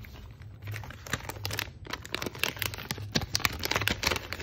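Crinkling and rustling of a plastic anti-static bag being handled as a keyboard PCB is pulled out of it: an irregular run of sharp crackles.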